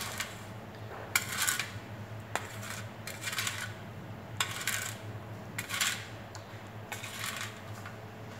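Plastic spoon scraping and clinking against a stainless steel bowl of kumquat juice with sugar and salt, in short strokes about once a second, as the mix is stirred to dissolve the sugar.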